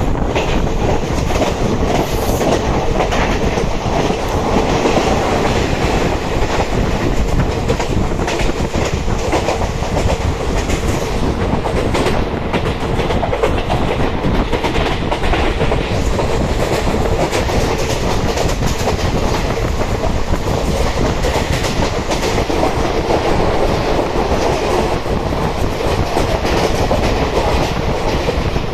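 Heard from on board a moving electric suburban train: the steady loud rumble of wheels on the rails with a continual clickety-clack of rail joints and rushing noise.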